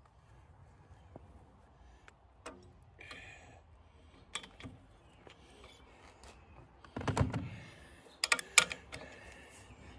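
Socket and hand tools on the cylinder head nuts of an air-cooled Wisconsin engine: scattered light metal clicks and taps, then a louder grinding clunk about seven seconds in and a quick run of sharp clicks about a second later.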